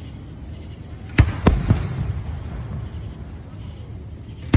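Fireworks shells bursting overhead: two sharp booms in quick succession about a second in and another right at the end, with a low rumble lingering between them.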